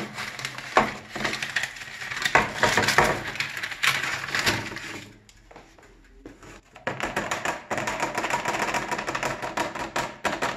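Baked meringues being pulled off baking paper on a metal baking tray: crisp paper crackling with quick light clicks and taps as the meringues come loose. After a short pause, a steadier stretch of rustling and rattling follows.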